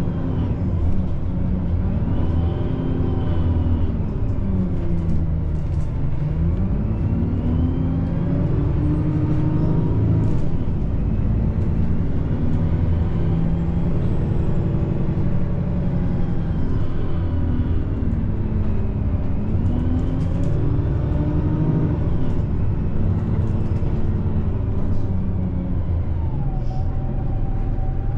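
Heard from inside a moving bus: steady engine and road rumble, the engine note dropping and climbing again twice as the bus slows and pulls away, with light rattles.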